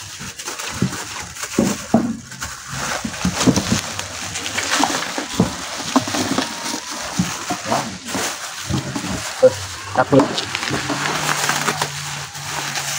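Plastic wrapping (a thin clear bag and a black bin-bag) being pulled and handled, rustling and crinkling with irregular crackles.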